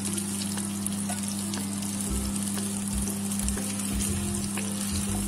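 Masala-coated singhara fish slices shallow-frying in oil in a nonstick pan, a steady sizzle over a steady low hum. In the second half there are a few low knocks as tongs work in the pan to lift the pieces out.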